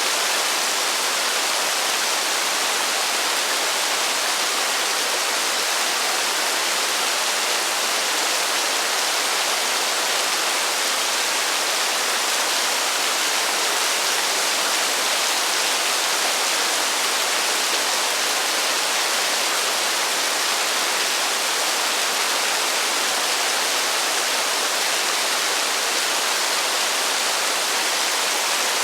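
Heavy rain falling as a dense, steady hiss with no thunder.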